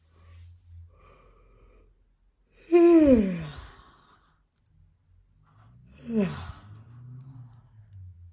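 A woman yawning aloud: a long, loud yawn whose voice slides steadily down in pitch, then a shorter, quieter falling yawn a few seconds later.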